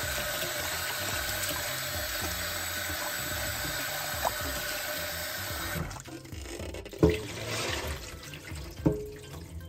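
Tap water running into a rice cooker's inner pot while a hand swishes the rice in it to rinse it. The flow stops about six seconds in, and the cloudy rinse water is then poured off into a stainless steel sink, with two sharp knocks of the pot, the first the loudest.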